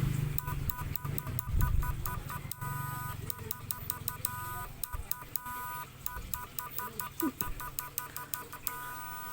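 Homemade PAC-type fish stunner switched on underwater, giving off a rapid, uneven series of high-pitched electronic beeps, some short and some held longer, with clicking between them.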